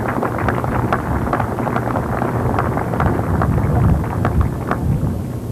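Audience applauding, with individual claps standing out, over a low rumble of wind on the microphone.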